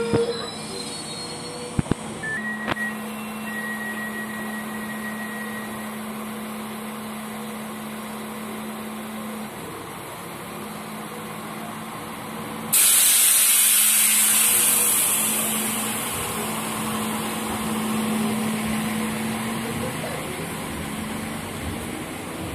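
SA135 diesel railcar standing at the platform with its engine idling, a steady hum. About thirteen seconds in, a sudden loud hiss of compressed air, typical of the air brakes or pneumatic system venting, which fades away over several seconds. A couple of sharp clicks about two seconds in.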